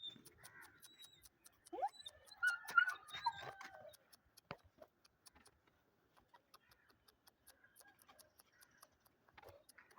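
A dog whining in a few high, wavering cries from about two seconds in, the first rising in pitch, over a faint fast ticking.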